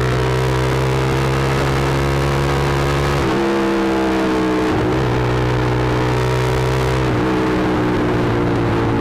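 Motorcycle engine breathing through an aftermarket SC Project muffler while riding on the road. The note holds steady, with a few sudden shifts in pitch along the way.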